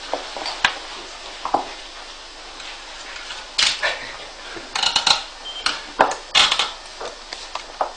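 Scattered metallic clicks and short bursts of clattering as the magnet motor is worked by hand to start it, with a brief high beep a little past halfway.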